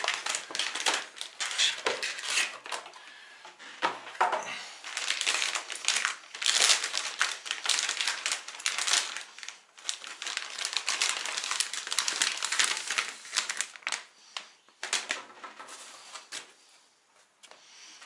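Crinkling and rustling of a plastic anti-static bag being handled and opened with both hands, a long run of irregular crackles.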